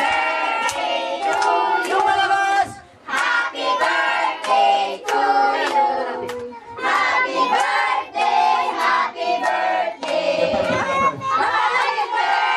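A group of children singing a song together while clapping along.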